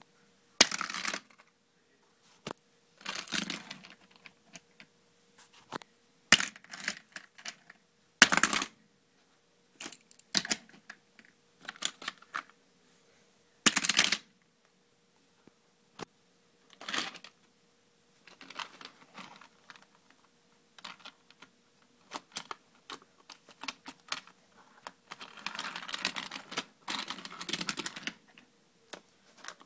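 A die-cast toy car and the plastic parts of a toy playset clicking, rattling and scraping in short, irregular bursts as the car is loaded onto a plastic launcher and sent along the plastic track.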